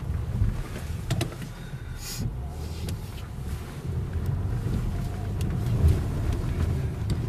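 A car engine runs as the car is driven through deep snow, its tyres falling back into earlier ruts. There are scattered knocks, and a brief rushing hiss comes about two seconds in.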